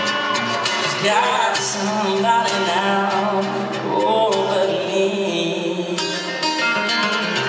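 Live country-pop music: an acoustic guitar played with a man singing over it, amplified through a PA.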